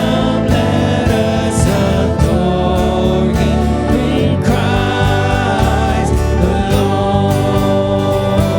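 Church worship band playing a song with voices singing along, over a steady beat.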